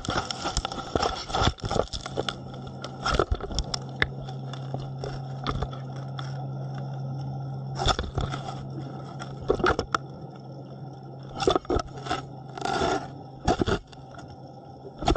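A shark biting and chewing on an underwater camera, its teeth scraping and crunching against the housing in a string of irregular sharp clicks and scrapes. A steady low hum runs under it for several seconds in the middle.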